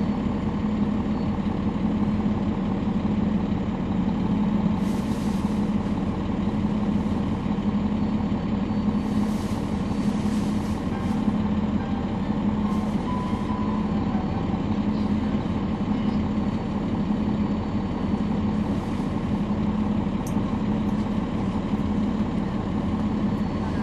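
The Cummins ISL9 diesel engine of a 2011 NABI 40-SFW transit bus, heard from inside the cabin, running steadily with a constant low drone. A few short high hisses break in now and then.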